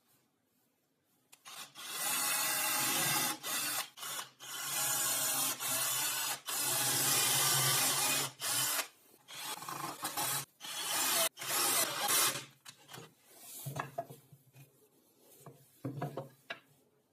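Abrasive scraping on wood: long stretches of rubbing starting about one and a half seconds in, broken by short pauses, then a few shorter, quieter scrapes after about twelve seconds.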